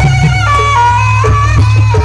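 Loud traditional jaranan accompaniment music: a sustained melody line that steps and bends in pitch, over a repeating figure of short notes and a heavy, steady low pulse.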